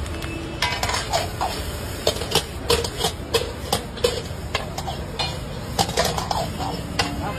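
Steel ladle clanking and scraping against a large iron wok as rice is stir-fried and tossed, in a quick irregular run of metallic strikes starting about half a second in.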